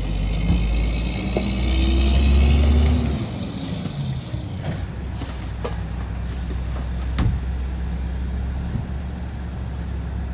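Mack MR rear-loader garbage truck's engine running, louder with a hiss for about the first three seconds, then settling to a steady idle. A few sharp knocks come as a plastic wheeled trash cart is tipped into the rear hopper.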